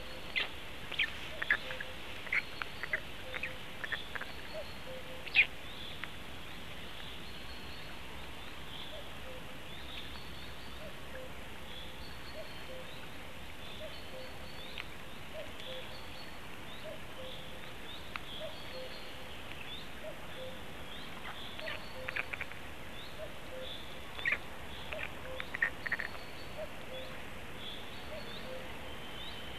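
Birds calling in forest: a steady run of low notes repeated about once a second throughout, with clusters of short, sharp chirps, one group in the first few seconds and another near the end.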